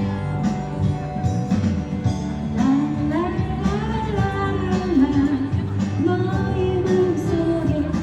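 Live song performance: acoustic guitar strumming in a steady rhythm, with a voice starting to sing the melody about three seconds in.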